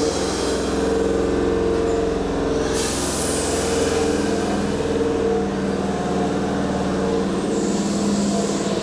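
Keihan 2600 series electric commuter train (set 2609F) pulling away from the platform: a steady electrical hum from the train, with a hiss that starts about three seconds in.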